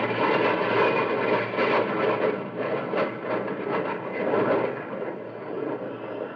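Jet aircraft passing overhead, a sound effect on an old radio transcription. Its rumble fades away toward the end.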